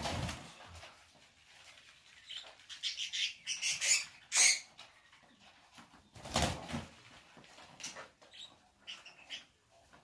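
Budgerigars flapping their wings in a wire cage in short bursts as they are handled and packed, with a few brief chirps.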